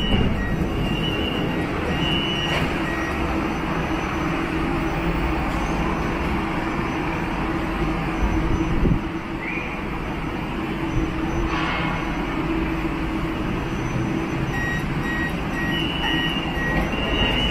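Inside a Siemens Inspiro metro car: a steady hum and hiss from the train's equipment and ventilation. Short, high, two-pitch electronic beeps repeat for about two seconds at the start and again for about three seconds near the end.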